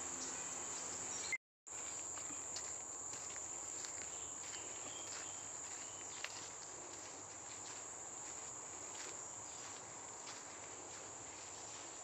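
Tropical forest insects droning steadily at one high pitch, with soft footsteps on the dirt and leaf-litter trail. The sound cuts out completely for a moment about a second and a half in.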